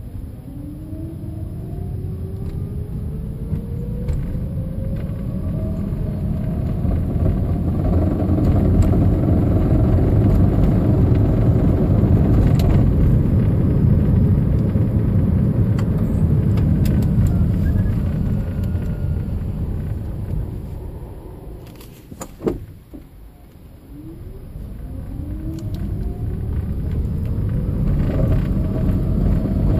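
2010 Toyota Prius driving stop-and-go at low speed: it pulls away with a rising whine and a rumble that builds, runs steadily, slows nearly to a stop with a short sharp sound, then pulls away again with the same rising whine. The car is being driven to reproduce an intermittent knock that occurs at low speeds under load.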